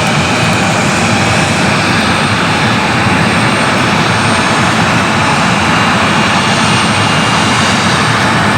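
Jet airliner engines running, a loud steady noise with faint thin high whining tones in it.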